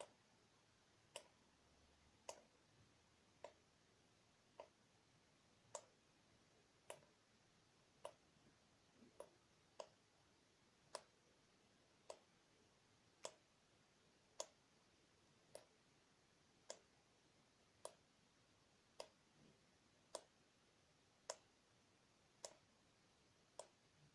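Water dripping from a tap, single drops falling at an even pace of a little under one a second, each a short sharp click.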